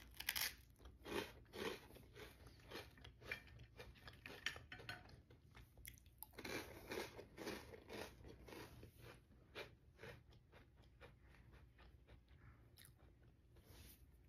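Crisp Italian rusk toast (fette biscottate) being bitten and chewed: a run of dry crunches, a second bout coming in about six seconds in, then thinning out toward the end.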